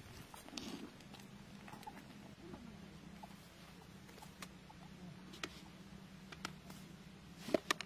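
Faint handling sounds of a cloth sack and a plastic bucket: scattered light clicks and rustles, then a few sharper taps close together near the end, over a low steady hum.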